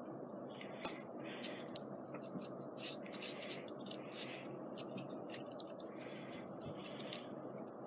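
Tacky glue being spread across a scrapbook page: a run of short, irregular rubbing strokes.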